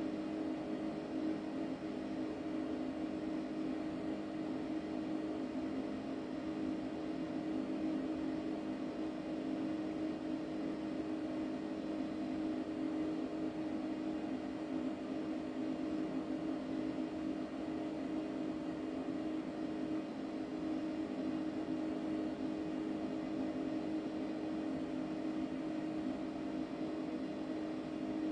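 Okuma LB15 CNC lathe running with a steady, unchanging machine hum, a low tone and its overtone held throughout.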